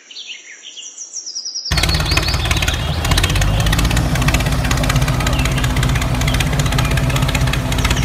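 Small electric gear motor of a homemade toy tractor running, starting abruptly about two seconds in and holding steady: a low hum with a fast, dense clatter. Birds chirp faintly before it starts.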